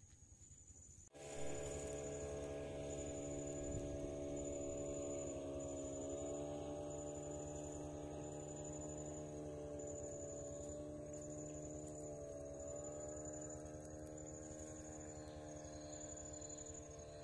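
A steady droning hum of several tones that starts abruptly about a second in, with a high-pitched insect chirp pulsing on and off at an even pace, a little faster than once a second.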